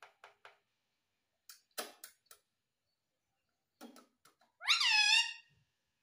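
Indian ringneck parakeet calling: a few soft quick clicks, then short harsh sounds, then one loud call about a second long near the end.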